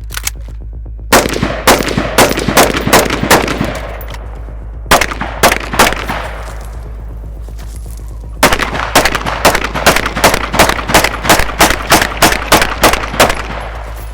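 Strings of rapid gunshots from a rifle-and-pistol drill: about eight shots in the first few seconds, a few more about five seconds in, then a long fast string of roughly fifteen shots at about three a second from about eight seconds in.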